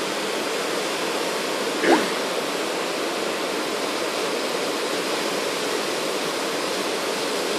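Floodwater rushing along a flooded street, a steady heavy rush of water. About two seconds in, a brief rising sound stands out over it.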